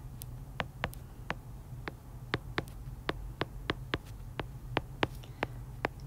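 Stylus tip tapping and clicking on a tablet's glass screen during handwriting: short, sharp, irregular clicks about three a second, over a low steady hum.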